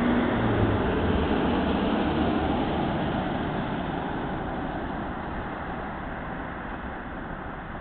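A car passing on a wet, slushy road, its tyres hissing and engine running. Loudest at first, then fading steadily as it moves away.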